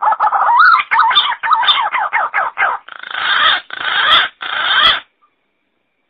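Green pigeon (punai) calls played as a hunting lure: a run of warbling, wavering whistles, then three harsh grating notes. The calls stop about five seconds in.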